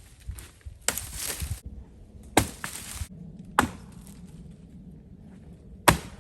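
Axe chopping limbs off an oak log: four sharp strikes about one to two seconds apart, the first two followed by a brief crackle of splitting wood.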